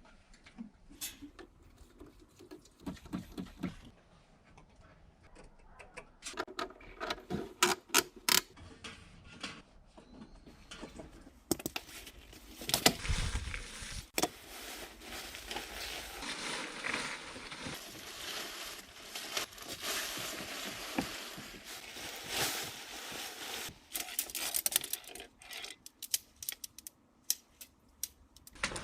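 Camping gear being handled: irregular clicks, taps and rustling, with a busier stretch of rustling and knocking in the middle.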